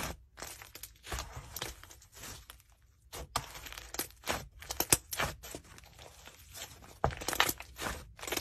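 Hands squeezing and kneading a thick slime, giving irregular sticky crackles and pops in clusters.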